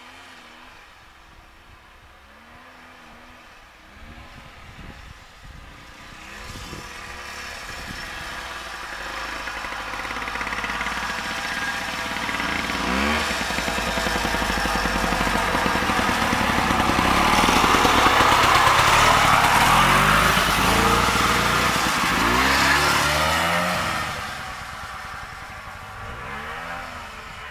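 1969 Sno Jet snowmobile's two-stroke engine running as the machine approaches, growing steadily louder, with the engine pitch rising and falling as it is revved. It is loudest about two-thirds of the way through as it passes close by, then drops off near the end.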